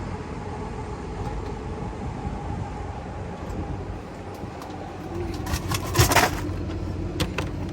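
Vending machine running with a steady hum over low street rumble. About six seconds in, a burst of clatter and a loud knock as the selected frozen ramen package drops into the dispensing tray.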